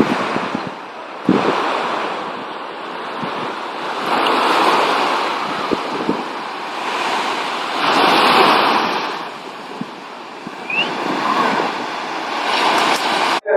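Ocean surf: waves breaking and washing in, the rush swelling and fading in slow surges a few seconds apart.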